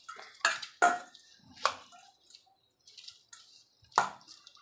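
Stainless steel potato masher pressing boiled potato and roti crumbs and knocking against a steel bowl, making a few irregular metallic clinks, some with a short ring.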